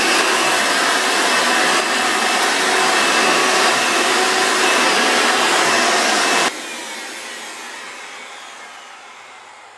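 A 27-year-old Hoover Elite vacuum cleaner running steadily, then switched off about six and a half seconds in. Its motor winds down with a falling whine that fades away.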